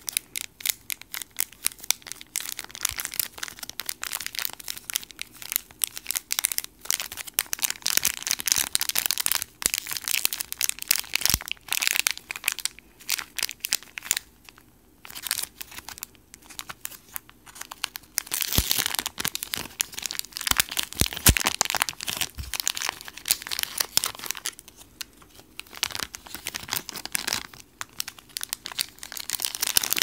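Thin clear plastic packaging bag crinkling and crackling as it is handled and pulled open around a foam squishy, in dense runs with brief pauses.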